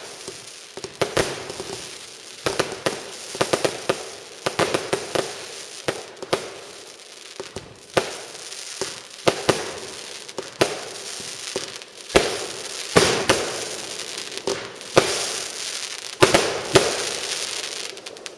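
Fireworks going off in quick, irregular succession: many sharp bangs, often several a second, with crackling between them.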